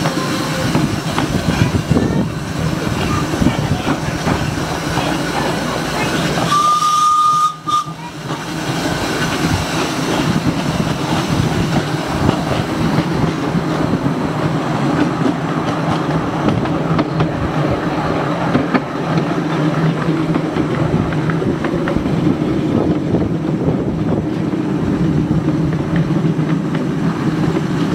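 Miniature railway train running steadily along its track, with one short, steady whistle blast about seven seconds in.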